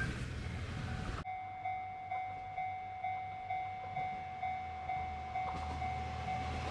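A train running past, then, after an abrupt cut, a Japanese level-crossing warning bell dinging steadily about twice a second. A low rumble builds under the bell near the end.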